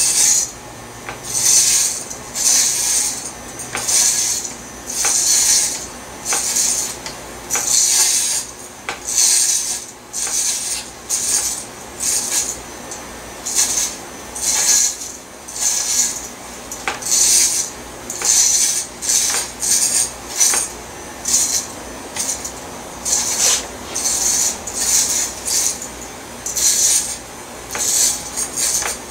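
Corded electric hair clippers with a one-inch guard cutting through the hair on top of the head, each pass a short crisp rasp, about one a second.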